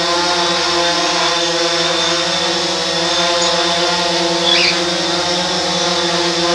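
DJI Phantom 4 Pro quadcopter hovering on V2.0 low-noise propellers: a steady propeller hum with several tones stacked together, running about 9 to 10 decibels lower than on its stock propellers.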